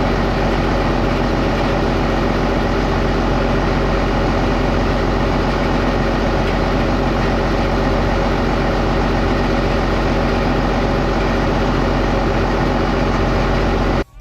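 A heavy engine running steadily at an even speed, then cutting off abruptly at the very end.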